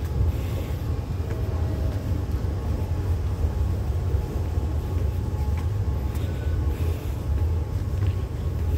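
Steady low rumble with a hiss over it: the background noise inside a metro station, with a few faint clicks.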